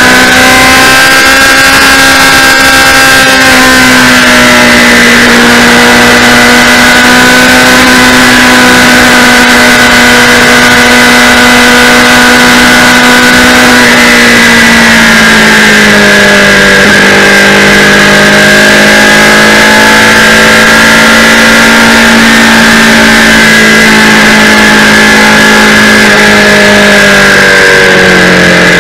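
Kawasaki Z800's inline-four engine cruising at a steady speed on the highway. Its note drops a little about halfway through and again near the end, under loud, constant wind noise on the bike-mounted camera's microphone.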